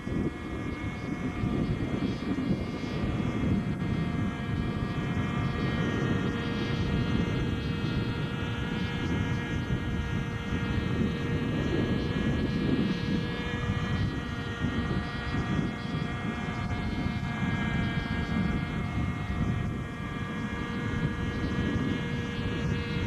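Radio-controlled 550-size NOTAR model helicopter in flight: its engine runs with a steady whine over the rush of the rotor.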